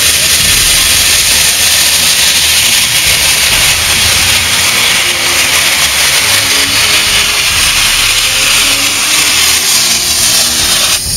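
French 241 A class 4-8-2 steam locomotive 241-A-65 venting steam from its open cylinder drain cocks: a loud, steady hiss.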